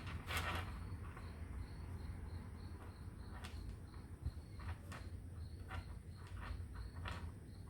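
A cricket chirping steadily, about three chirps a second, over a low hum, with a handful of light clicks.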